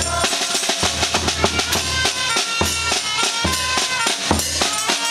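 Small street band playing a tune: brass and clarinet holding notes over a steady beat on a bass drum.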